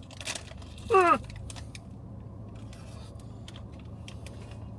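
A short voiced exclamation falling in pitch about a second in, like an appreciative 'mm' while tasting a cinnamon morning bun, over a steady low hum.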